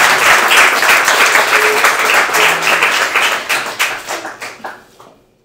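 Audience applauding with dense clapping, fading out over the last two seconds.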